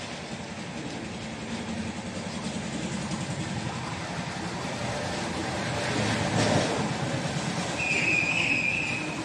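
A person brushing their teeth and hawking in the throat: a rough, rasping noise that builds to its loudest hawk about six and a half seconds in. A brief high-pitched tone sounds near the end.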